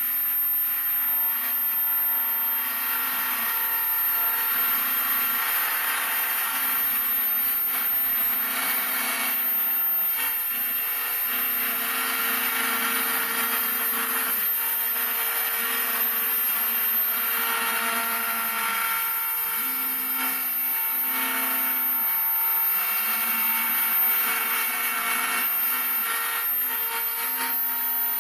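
Homemade CNC router milling: the spindle runs with a steady high whine while the stepper motors hum in low tones that change pitch and stop and start every second or so as the axes move.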